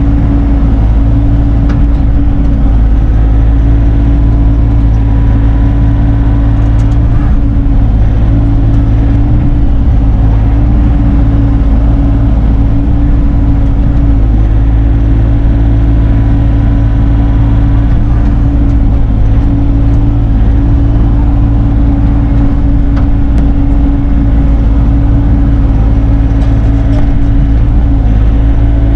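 Bobcat E42 mini excavator's diesel engine running steadily under work, a constant loud drone.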